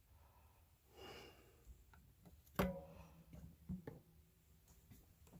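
Quiet handling sounds at a workbench: a soft breath about a second in, then one sharp click a little past halfway and a few fainter taps.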